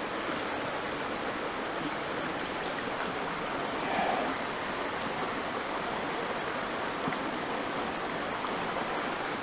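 Shallow creek water running steadily over rocks, close to the microphone.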